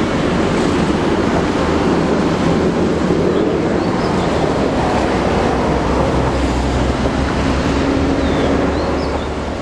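Siemens ER20 diesel-electric locomotive running as it pulls away past the microphone, a steady, loud engine drone with a low hum underneath, easing off a little near the end.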